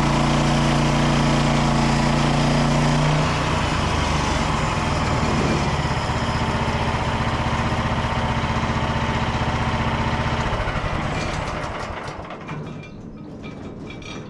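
Frontier OS27 portable sawmill's engine running fast, dropping to a lower speed about three seconds in, then shut off near the end and dying away at the end of a cut.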